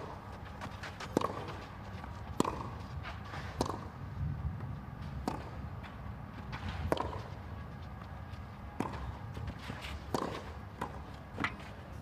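Tennis rally on a clay court: a ball struck back and forth by rackets, about eight sharp hits spaced a second or two apart.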